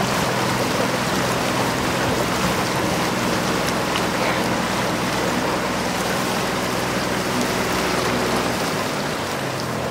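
A boat's motor running with a low steady hum under a constant hiss of water.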